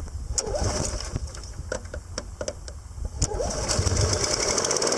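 Briggs & Stratton Intech 6.75 HP overhead-valve engine on a Snapper self-propelled lawn mower being pull-started: clicks and rattles of the recoil starter, then about three and a half seconds in it catches and runs up to a steady run.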